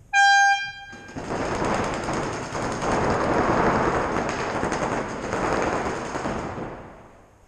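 Game-start horn sounds briefly, then paintball markers fire rapidly for about six seconds, many shots running together into a dense rattle that dies away near the end.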